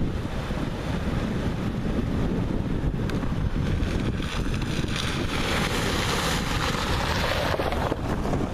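Wind buffeting the microphone over the steady rush of a shallow river. From about four seconds in, a car splashes through the ford and drives past with a growing hiss that stops abruptly near the end.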